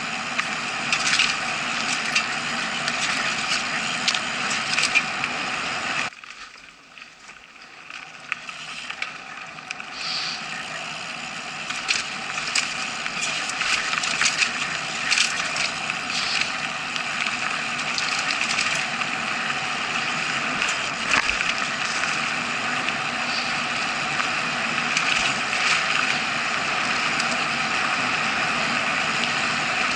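Mountain bike riding fast down a dirt forest trail, heard from an action camera in its housing: steady rolling and rattling noise with frequent small knocks as the bike runs over roots and stones. About six seconds in the noise drops suddenly to much quieter for a few seconds, then builds back up.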